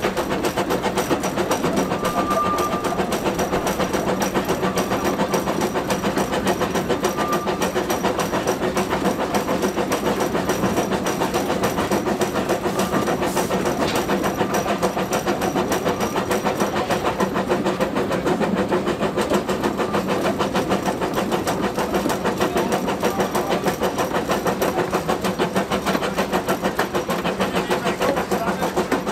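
Small narrow-gauge steam locomotive running, heard from its cab: a rapid, steady rhythm of exhaust beats and running-gear rattle.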